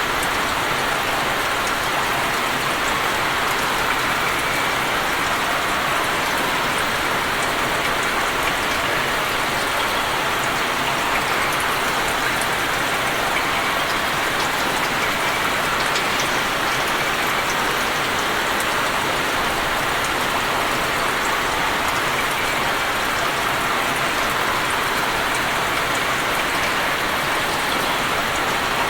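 Steady rain falling on open water: an even hiss of countless drops hitting the surface, with fine individual drop ticks scattered through it.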